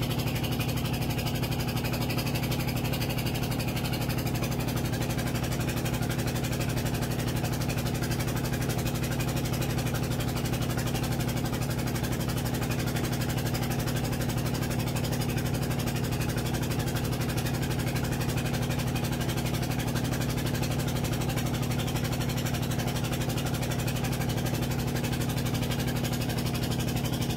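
A boat's engine running at a steady speed: one constant low drone with a steady hum that never changes.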